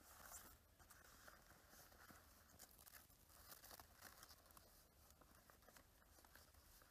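Faint, irregular rustling and crinkling of a fresh banana leaf being folded and wrapped by hand.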